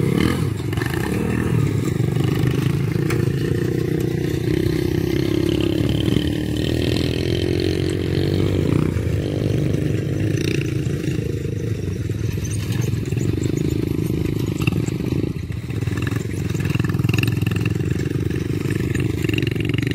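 Small motorcycle engine running steadily on a bike rigged to haul straw bales, its pitch rising and falling a little near the middle.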